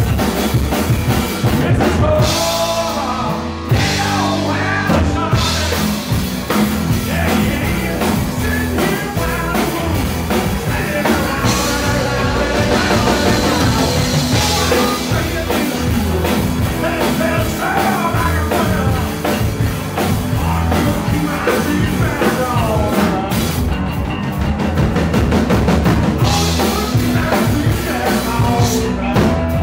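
Live blues-rock band playing: drum kit, electric bass and electric guitars, with harmonica and maracas on top.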